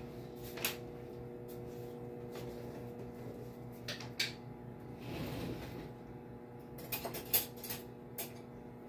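Steady low hum with a few short, sharp clicks, several of them in a quick cluster about seven seconds in.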